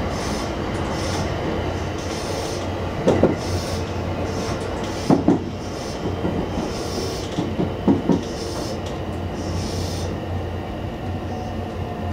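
Running noise of a JR West 225 series electric train heard from the cab, with the wheels clacking over track joints in three quick pairs.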